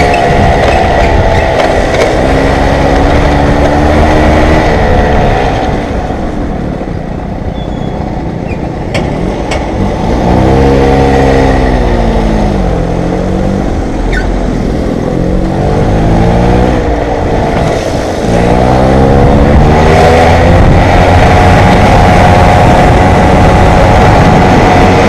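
Stock Peugeot 103 SP moped's 49 cc two-stroke single-cylinder engine running under way, its pitch rising and falling with the throttle. It eases off and drops quieter about six seconds in, revs up again around ten seconds, and from about nineteen seconds in holds a high, steady note.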